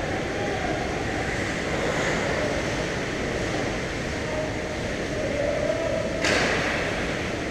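Steady ice-rink noise during a hockey game: a constant rumble and hiss with faint distant voices. About six seconds in, a brighter, louder hiss comes in.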